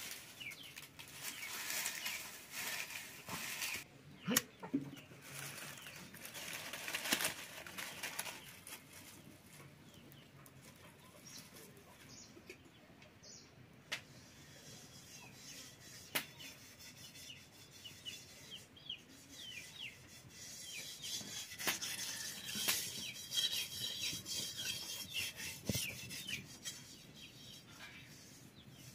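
Dry leaves rustling as they are handled and pushed into a clay mud stove to light it, with scattered clicks. Short bird chirps come in during the last third.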